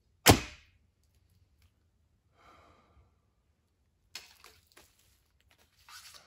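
A traditional recurve bow shot from full draw: one sharp, loud thump as the string is released and the arrow strikes the target at close range. From about four seconds in come light clicks and rustling as the next arrow is picked up from the table.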